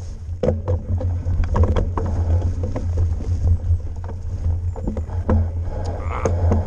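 Mountain bike ridden fast down a rough forest dirt trail: a steady low rumble of wind and tyres on the microphone, with frequent sharp knocks and rattles as the bike hits bumps.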